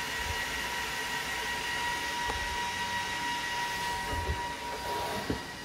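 Cooling fans of a Cisco Catalyst C9200L switch running steadily after power-up: an even rushing noise with a thin high whine. Near the end the whine drops out and the noise eases a little, with a faint knock.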